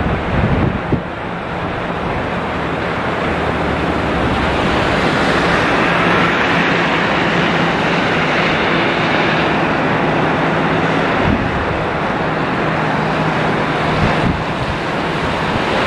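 Steady rushing noise of rain mixed with the CFM56 jet engines of an Airbus A320-214 on final approach, slowly growing louder as it nears.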